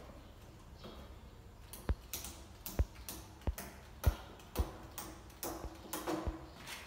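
A series of about eight short, sharp knocks or taps at an uneven pace, roughly one every half second to a second, starting about two seconds in.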